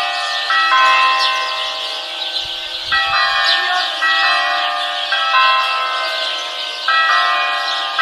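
Church bells ringing, a new stroke every second or two with the tones overlapping and hanging on, over many birds chirping.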